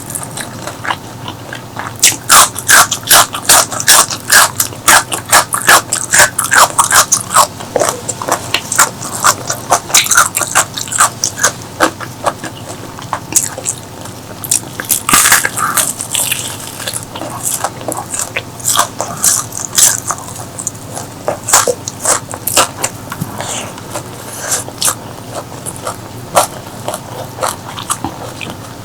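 Close-miked eating of crispy fried chicken: crisp crunching bites and chewing. The crunches come thick and fast for several seconds after the start, then grow sparser, with a louder crunch about halfway through.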